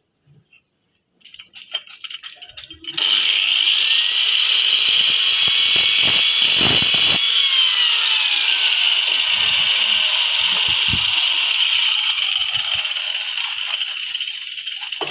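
Rattling and clacking, then about three seconds in an angle grinder starts and runs with a loud, high whine and a gritty hiss, cutting marble stone; its pitch drops about halfway through.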